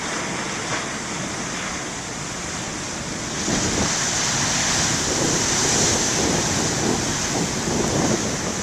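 Big ocean waves breaking and washing ashore in a steady surf noise that swells louder about three and a half seconds in as a wave crashes, then eases slightly near the end, with wind on the microphone.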